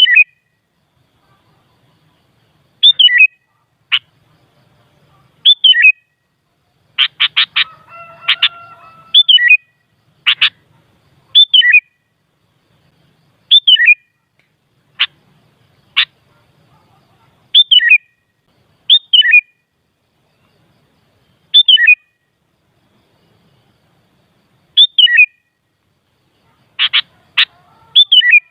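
Sooty-headed bulbul (kutilang) calling: short notes that slide down in pitch, repeated every two to three seconds, mixed with single sharp notes and quick runs of three or four sharp notes, with a brief fainter warble about eight seconds in. It is a lure call meant to provoke other bulbuls into singing.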